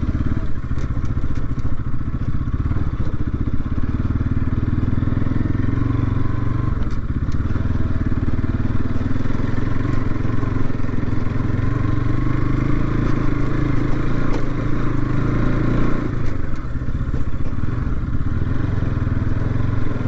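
Motorcycle engine running steadily as the bike is ridden slowly along a dirt track, its note shifting and dipping briefly about three quarters of the way through.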